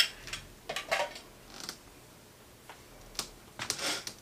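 A sharp click as a small candy container is set down, then scattered light clicks and rustling as a hand rummages inside a tote bag, with a longer rustle near the end.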